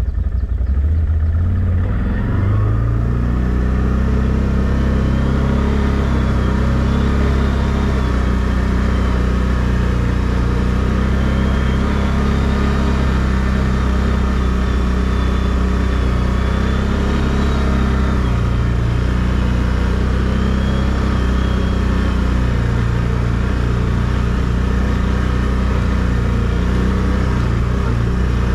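ATV engine running under way, its note climbing over the first couple of seconds as it pulls away, then holding fairly steady with small rises and dips as the throttle changes.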